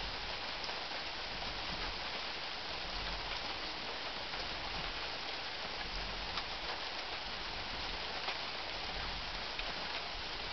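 Steady rain: an even hiss of falling rain with a few individual drops ticking now and then.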